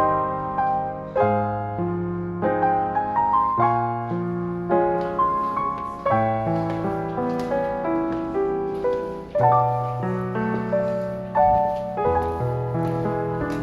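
Background piano music: a gentle melody over a steady bass line, each note struck and then fading.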